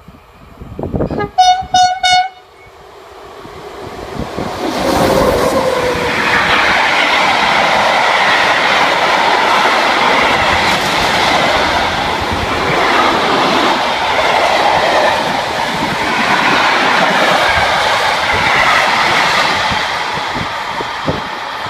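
The horn of an SNCF BB 26000 electric locomotive sounds in several short blasts about a second in. The train then passes close by: a long freight of tank-container wagons rumbling and clattering over the rails, loud and steady, easing a little near the end.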